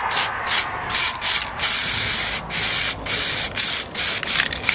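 Aerosol can of heat-resistant paint spraying in a quick series of short hissing bursts, with one longer spray about a second and a half in.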